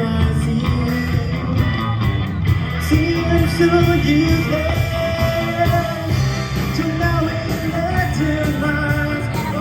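A live rock trio playing: drums, bass guitar and electric guitar, with a sung melody line.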